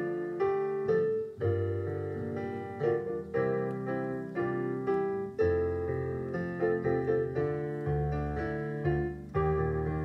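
Piano playing a slow piece of chords over bass notes, a new note or chord struck every half second or so and left to ring.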